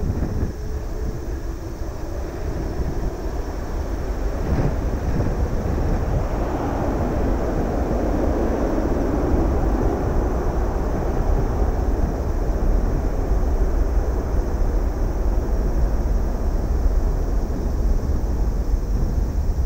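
Distant jet airliner's engines during its landing roll-out: a broad rushing rumble that swells about six seconds in, peaks a few seconds later and slowly fades. A low wind rumble on the microphone runs underneath.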